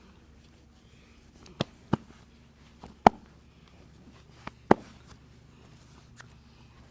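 Sharp, short clicks of a head and back massage, five in all: a quick pair, a single louder one, then another quick pair.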